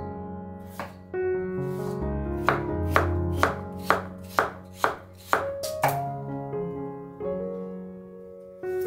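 Kitchen knife chopping daikon radish on a wooden cutting board: sharp knocks of the blade on the board, about two a second through the middle, with single cuts near the start and the end.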